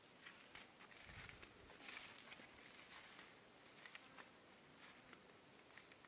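Near silence: faint outdoor ambience with scattered soft ticks and rustles, and a brief low rumble about a second in.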